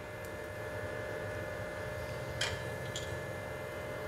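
Faint steady hum of room tone. About two and a half and three seconds in there are two light clicks as chopped almonds and pistachios are sprinkled by hand over a ceramic dish.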